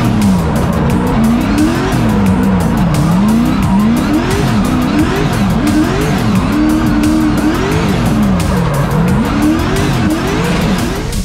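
V8-swapped drift car's engine heard from inside the cabin, revs rising and falling about once a second as the car is drifted, over a steady rush of tyre noise.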